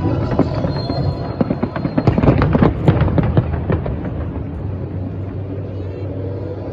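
Fireworks going off in a rapid cluster of bangs and crackles, with the show's music trailing off near the start, then a steady low rumble of ambient noise.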